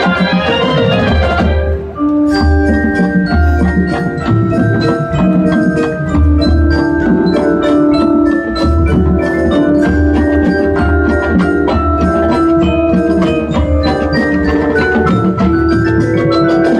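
High school marching band playing its field show. Fast runs of struck mallet-percussion notes from the front ensemble sit over a repeating low pulse and held lower notes, with a brief break in the music about two seconds in.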